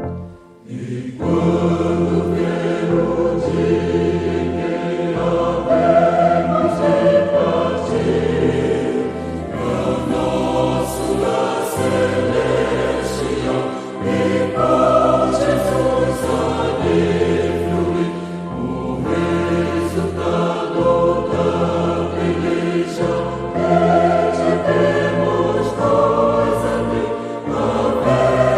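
Church choir singing a Pentecostal gospel hymn with instrumental accompaniment. The music drops briefly under a second in, then the full choir comes in and keeps singing.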